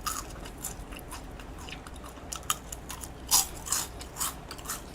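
Close-up biting and chewing of crisp deep-fried garlic-scape tempura: a run of short, sharp crunches at irregular intervals, the loudest a little past three seconds in.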